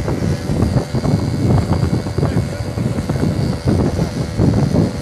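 Wind buffeting the microphone of a camera moving along a road, a loud, uneven rush with constant fluttering gusts.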